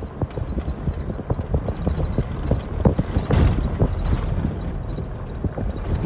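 A car driving on a rough, rutted dirt road, heard from inside: irregular knocks and rattles from the body and suspension over a low road rumble.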